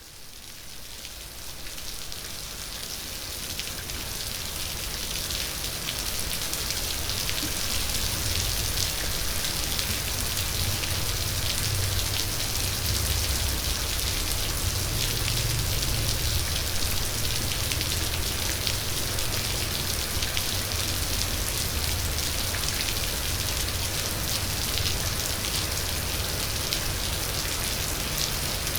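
Steady rain falling: a dense hiss of countless fine drops, fading in over the first few seconds and then holding even, with a low rumble beneath.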